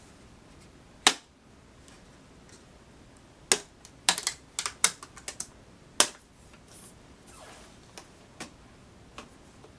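Sharp plastic clicks and snaps as a panel on an Alienware M18x R2 laptop is pried up and its clips pop loose. There is one about a second in, a quick run of them in the middle, another loud one about six seconds in, and a few fainter ones near the end.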